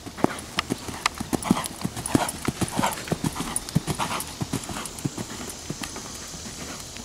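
Warmblood-cross horse cantering on arena sand under a rider: a quick, steady run of hoofbeats, growing fainter over the last couple of seconds.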